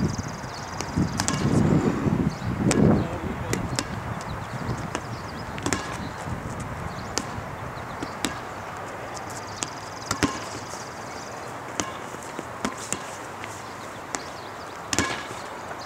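A rubber playground ball bouncing on asphalt and being slapped by hand, giving sharp smacks at irregular intervals through the rally. There are some heavier low thumps in the first three seconds.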